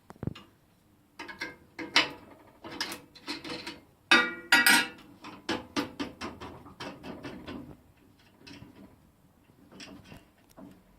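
A turned wooden mallet being taken off a wood lathe: a string of irregular clicks, knocks and ratchet-like rattles from the lathe's fittings and the wood, loudest about four seconds in and thinning out after about eight.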